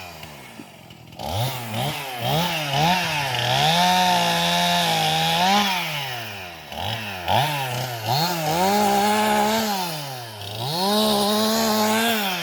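Chainsaw revving up and down over and over, holding high for a second or two at a time as it cuts limbs off a felled tree; it starts about a second in.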